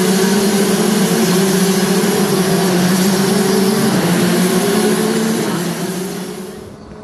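Racing karts out on the track: a steady engine drone whose pitch shifts in steps, over a wide hiss, fading away about six seconds in.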